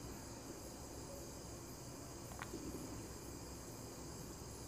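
Faint, steady chirping of crickets, with a single soft click about two and a half seconds in.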